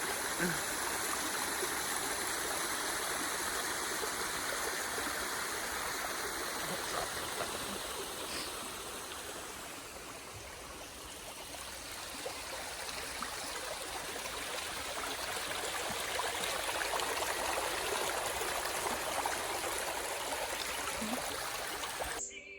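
Running water rushing steadily, dipping a little in level about halfway through.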